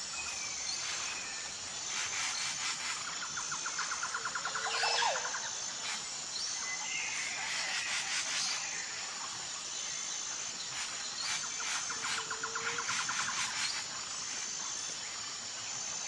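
Tropical forest ambience: a steady high insect drone with a short high note repeating about every second and a half, and bird calls over it. These are two rapid trills, one about four seconds in and one near twelve seconds, and a few whistles around seven to eight seconds.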